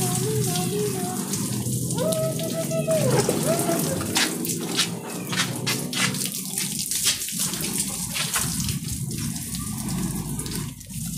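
Garden hose spraying water against a wooden post, a plastic tarp and wet concrete: a steady hiss of water with a patter of splashing drops. A voice is heard briefly in the first few seconds.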